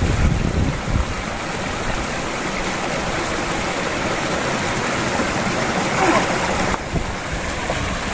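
Shallow mountain stream running over rocks and small cascades, a steady rush of water. Wind buffets the microphone with a low rumble in the first second.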